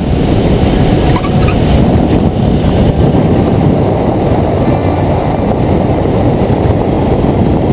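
Loud, steady rush of wind on the microphone of a camera mounted on the wing of a Revo weight-shift trike rolling along the runway.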